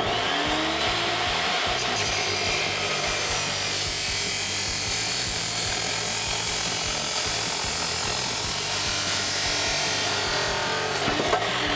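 DeWalt abrasive chop saw spinning up, then cutting through the truck's factory exhaust pipe: a steady, loud grinding screech over the motor's whine.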